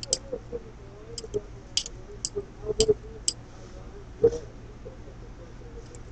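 Latch hook clicking irregularly as it works through yarn, its small hinged metal latch snapping open and shut, with a soft knock a little past four seconds.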